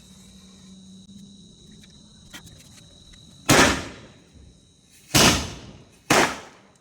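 'Do awaaz' (two-sound) firecrackers going off: three loud bangs starting about halfway in, a second or so apart, each trailing off in a short echo.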